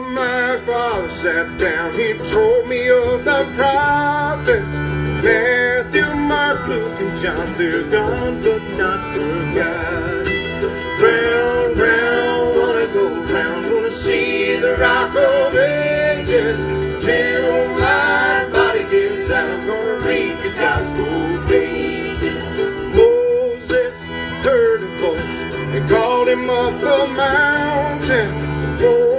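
Live bluegrass band playing a slow song on fiddle, acoustic guitar, mandolin, banjo and upright bass, with a man singing lead at the microphone.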